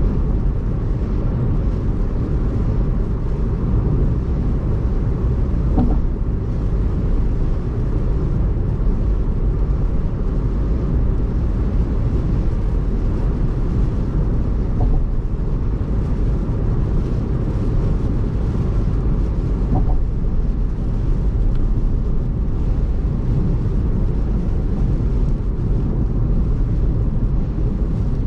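A car travelling at expressway speed on rain-wet pavement: a steady low rumble of road and tyre noise.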